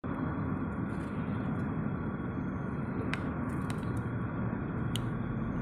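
Steady road and engine noise of a moving car heard from inside its cabin, with a few faint clicks.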